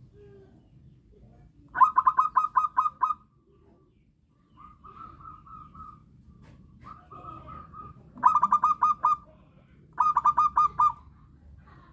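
A zebra dove (perkutut) calling in its cooing song. It gives three bursts of rapid stuttering notes, each a quick run of about five to seven coos. Softer, drawn-out coos at the same pitch fall between the bursts.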